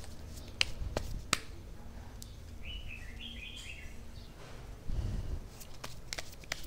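Tarot cards being handled: a card drawn off the deck and laid down on a cloth, making several sharp clicks and taps. A bird chirps briefly about three seconds in.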